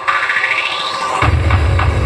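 Electronic DJ remix music: a rising synth sweep builds, then heavy bass drops in a little past halfway.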